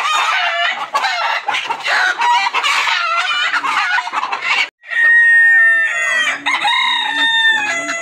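A flock of Sonali chickens clucking and squawking all at once. After a sudden brief break about four and a half seconds in, roosters crow, several long drawn-out calls overlapping.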